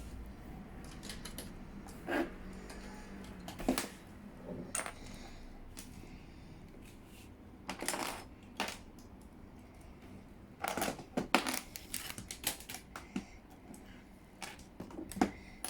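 LEGO bricks clicking and clattering as pieces are handled and snapped together, in scattered bursts with a busy run of clicks about eleven to twelve seconds in.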